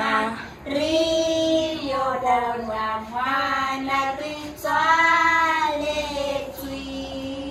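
Young girls singing a nursery rhyme together with a woman, in a few phrases of long held notes.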